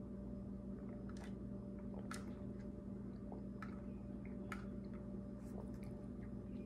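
Faint sounds of someone eating: a few scattered soft clicks over a steady low hum.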